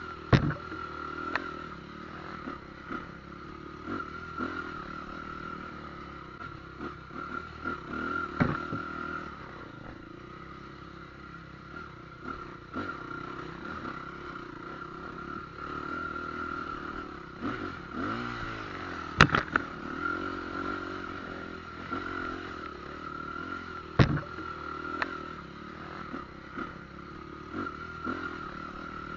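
Motorcycle engine running steadily while riding, with occasional sharp knocks and clatters.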